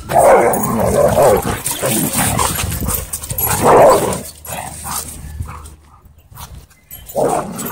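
A pack of dogs barking, yipping and whimpering at close range while they wrestle and crowd one dog. There is a loud run of barking at the start, a sharp burst around the middle and another near the end.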